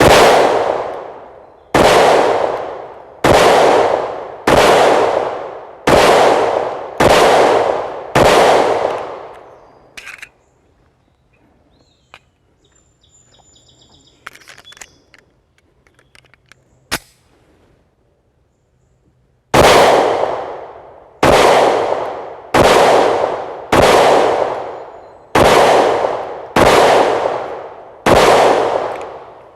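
Remington R51 9mm pistol firing two strings of seven shots, roughly one and a half seconds apart, each shot with a long echoing tail. Between the strings, about ten seconds of quiet metallic clicks and handling, with one sharp click just before the second string.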